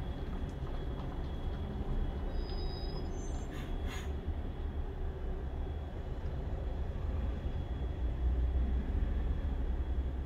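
Diesel engine of an articulated lorry running slowly close by, a steady deep rumble over tyre and road noise. Brief high squeaks and a short hiss come about three to four seconds in.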